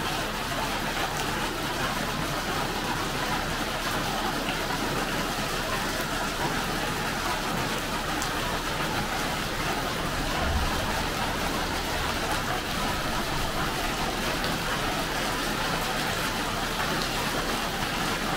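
Steady rain falling, an even hiss that holds without break.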